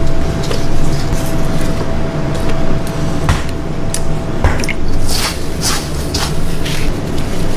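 Wet squishing of gloved hands working ground meat and egg wash, then sharp crunchy rustles as a patty is pressed into dry breadcrumbs in the second half, over a steady low rumble.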